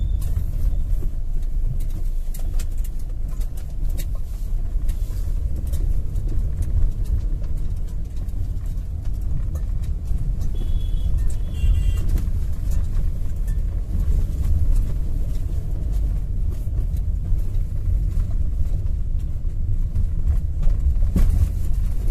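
Maruti Suzuki Alto driving slowly over a rough, potholed street, heard from inside the cabin: a steady low rumble of engine and tyres with scattered small knocks and rattles as the wheels take the bumps. The front suspension has just been rebuilt with a new lower arm, steering rack and bushes.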